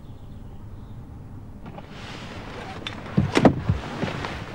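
Rustling of clothing and seat as a person leans across a car seat, swelling about two seconds in, with a quick cluster of soft knocks a little past three seconds in as the loudest part.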